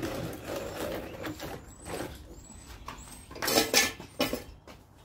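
A plastic tub holding liquid being scraped over concrete and set down in place, with a few louder knocks about three and a half to four seconds in.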